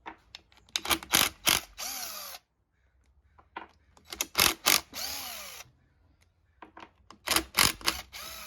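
Cordless power drill backing out the bolts of a KX85's clutch cover. It runs in three short bursts, each with a few sharp clicks, the motor's pitch swinging as it speeds up and slows down.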